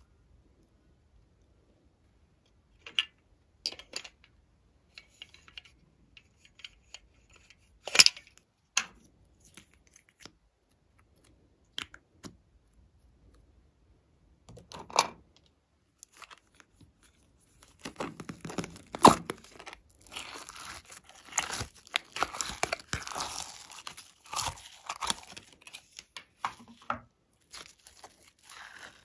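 Slime being worked by hand. Scattered sticky clicks and pops come first; from about two-thirds in comes a long run of dense crackling and crunching as a pink, bead-filled crunchy slime is squeezed and stretched.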